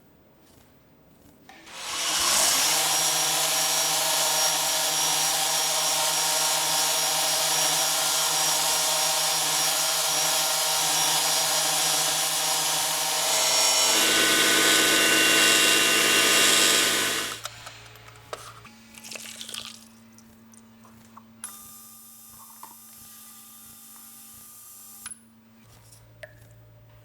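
A power tool's motor runs loudly and steadily for about fifteen seconds. Its pitch shifts and it grows a little louder about twelve seconds in, then it stops. A quieter steady hum with faint tones follows.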